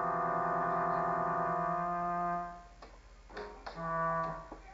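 Electronic keyboard holding a sustained chord that stops a little over two seconds in. It is followed by a few clicks and short notes as a baby presses the keys.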